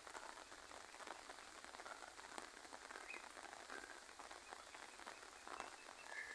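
Light, gentle rain falling steadily, a faint patter of many small drops.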